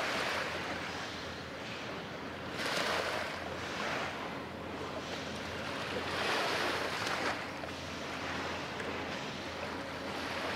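Small waves washing against the shore, a rushing sound that swells and fades every couple of seconds over a steady low hum.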